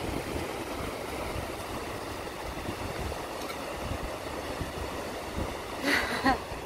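Wind rumbling on the microphone over the steady wash of breaking surf, with a brief high pitched call about six seconds in.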